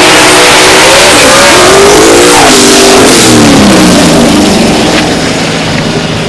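Two drag-racing cars at full throttle off the start line. The engine pitch climbs and drops back at gear shifts a couple of times, then the sound fades as the cars pull away down the track.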